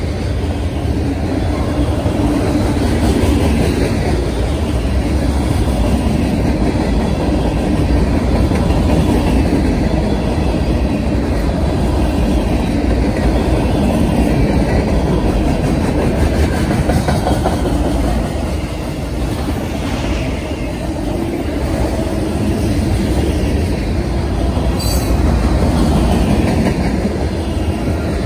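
Freight cars rolling past at close range: a steady heavy rumble of steel wheels on the rails, with clickety-clack over the rail joints and faint wheel squeal.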